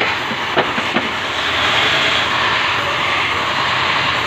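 Steady loud drone of workshop machinery, with three sharp metal clicks a little under a second in as the steel connecting rod is set under the arbor press.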